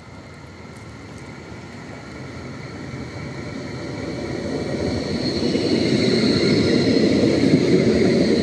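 Tram approaching, its rolling rumble growing steadily louder, with a steady high whine coming in about halfway through.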